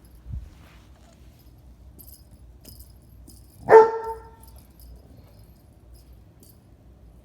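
A dog gives a single loud bark about three and a half seconds in. Before it there are faint light jingles and a soft thump near the start.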